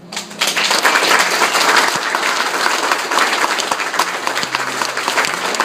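Audience applauding. The clapping breaks out just after the start and holds steady.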